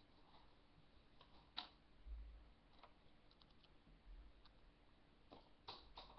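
Near silence: quiet room tone with a handful of faint clicks and a couple of soft low thumps as a pen and paper are handled on a desk.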